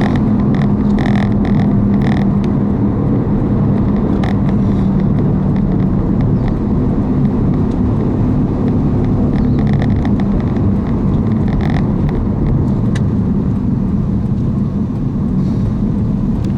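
Motor vehicle being driven: a steady engine hum and road rumble.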